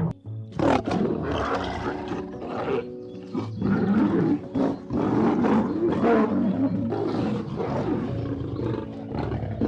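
A big cat roaring in a series of rough, throaty calls, over background music with steady held notes.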